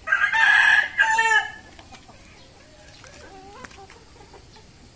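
A gamecock crowing once at the start, loud and lasting about a second and a half with a short break about a second in, followed by faint fowl sounds.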